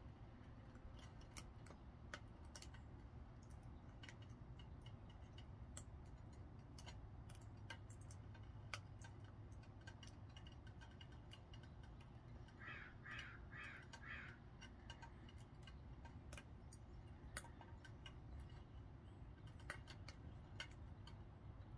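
Faint, irregular crackling and ticking from a small wood-burning tin-can gasifier stove, over a low steady rumble. About two thirds of the way through, a bird calls four times in quick succession.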